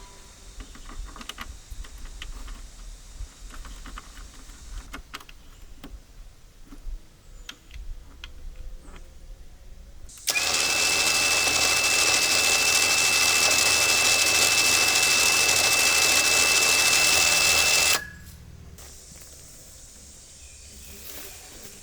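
Scattered light knocks and clicks, then a loud power-tool-like machine with a steady high whine starts abruptly, runs for about eight seconds and cuts off suddenly.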